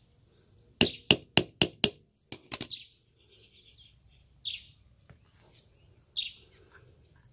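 Hammer tapping on a starter motor's housing to open it up: a quick run of five sharp taps, then two more, followed by faint scraping and a few lighter knocks.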